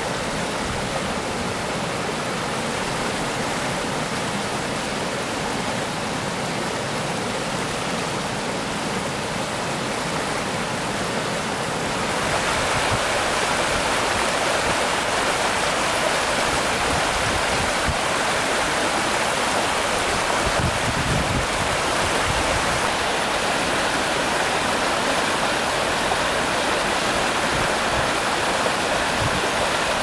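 Spring stream rushing over rocks in small rapids: a steady splashing rush of water that gets louder and brighter about twelve seconds in.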